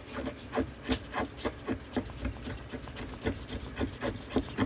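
Gerber Urban Armbar Drive multitool cutting into a piece of wood in quick, regular strokes, about four a second.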